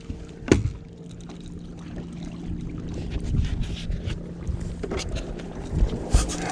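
Steady electric motor hum on a bass boat, with a few sharp knocks on the boat: one about half a second in and two near the end.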